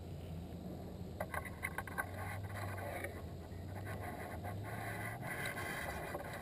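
Rustling and light crackling of camouflage clothing and gear as a hunter shifts in a tree stand right by the camera, starting about a second in, with irregular clicks of handling mixed in.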